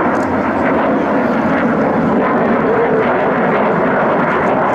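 Jet engines of two Dassault Mirage 2000 fighters flying overhead in formation: a loud, steady jet rumble that holds without rising or falling.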